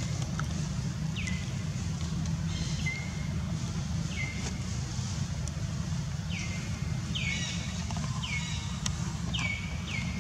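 Steady low rumble throughout, with a bird repeatedly giving short calls, about eight of them, each dropping in pitch and ending on a brief level note.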